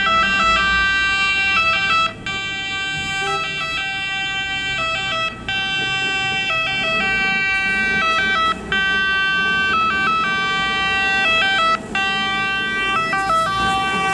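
Italian fire-truck two-tone siren, switching repeatedly between a high note and a low note, with a short break every three seconds or so.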